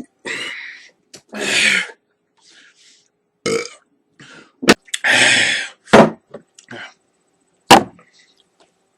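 A person belching over and over: a run of loud burps of different lengths, the longest about five seconds in. A few sharp clicks fall between them.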